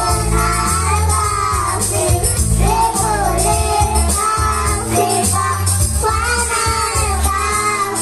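A child singing over a loud live music accompaniment with heavy bass and jingling percussion, the sung lines breaking off with short gaps about every one to two seconds.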